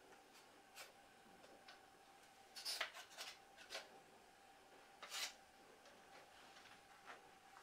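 Wooden beehive frame, still warm from the steam wax melter, being scraped clean of leftover wax residue with a metal scraper: faint short scraping strokes, with louder scrapes about three and five seconds in.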